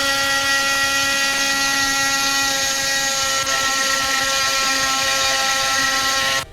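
DeWalt oscillating multi-tool running at full speed with a steady, high-pitched whine as its carbide blade cuts into a steel security screw. It stops abruptly at the end.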